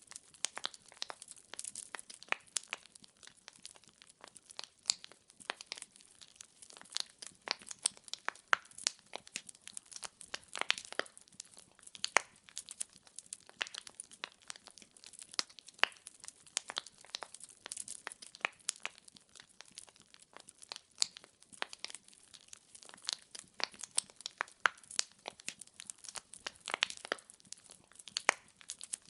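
Burning firewood crackling: a dense, irregular stream of small snaps with a few louder pops among them.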